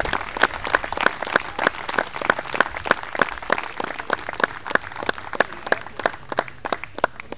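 Applause from a small audience: dense clapping at first that thins to a few scattered claps and stops near the end.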